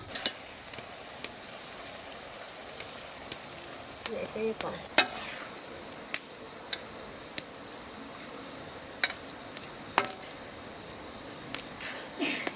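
Crickets chirring steadily in a high band, with scattered sharp clicks and knocks on top, the loudest about five and ten seconds in.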